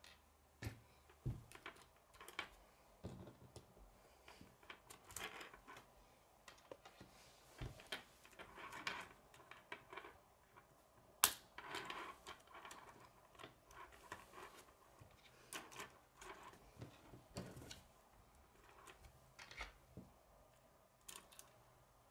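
Plastic K'nex rods and connectors clicking and snapping together as they are handled and fitted, an irregular run of small clicks and taps, the sharpest about eleven seconds in.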